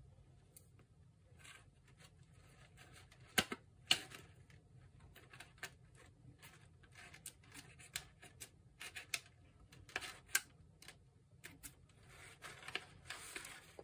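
Scissors snipping the leading end of a roll of 120 film, trimming its pointed tip so it will not catch on the reel's ridges, with the plastic film crackling and rustling as it is handled. The clicks are scattered and faint, the loudest a pair about three and a half and four seconds in.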